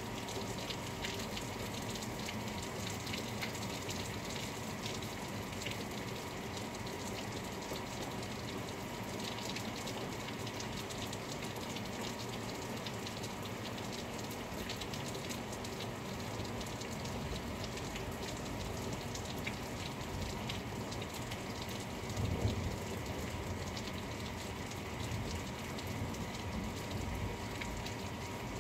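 Steady rain falling, with many small drop hits throughout. About three-quarters of the way through there is a brief low rumble.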